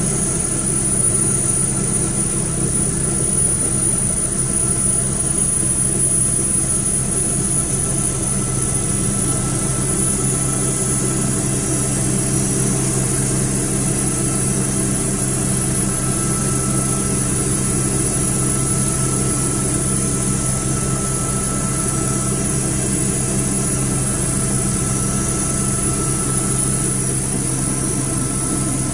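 Westland Wasp helicopter's Rolls-Royce Nimbus turboshaft engine and rotors running steadily, heard from inside the cabin: a constant low drone under a high steady turbine whine.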